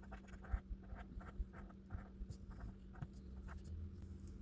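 Scratch-off lottery ticket being scratched: a run of short, faint scrapes, a few strokes a second, as the latex coating is rubbed off.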